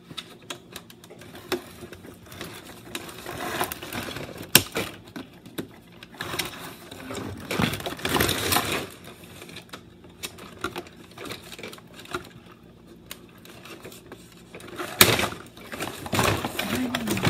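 Plastic toy blaster parts and their cardboard packaging being handled: irregular clicks, knocks and rustling, with one sharp click about four and a half seconds in.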